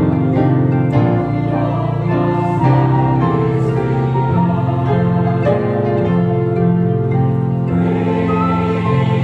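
Church choir singing a hymn, accompanied by grand piano and organ.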